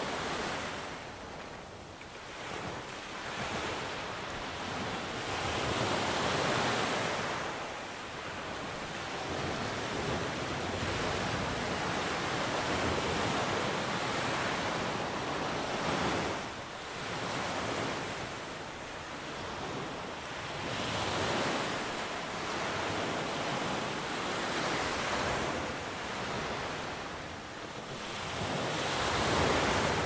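Sea surf breaking on a sandy beach and washing up the shore, swelling and easing every few seconds, with the biggest break near the end.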